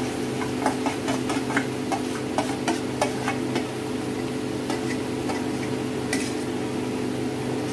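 Clicks and scrapes of metal on metal as thick paste is scraped out of a stainless steel bowl into a roasting pan: a quick run of clicks for the first few seconds, then fewer, over a steady low hum.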